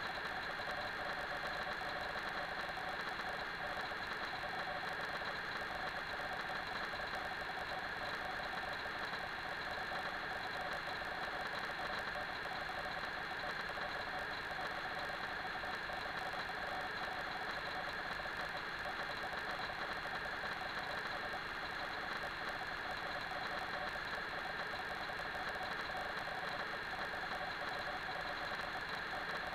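Steady machine hum with a high whine, unchanging throughout and with no impacts or voices standing out.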